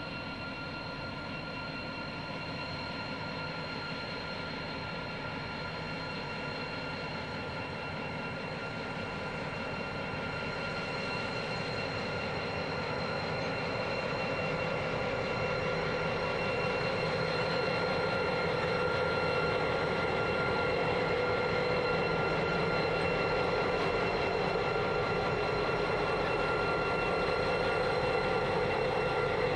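Two Pacific National 81 class diesel-electric locomotives, EMD two-stroke V16 engines, approaching and drawing level at the head of a train of empty grain hoppers. The engine sound grows steadily louder, with a steady high whine held over it.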